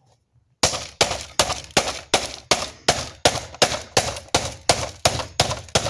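Hammer striking the plastic control panel of an Emerson iPod docking radio again and again. There are about fifteen sharp blows at a steady three a second, starting just under a second in.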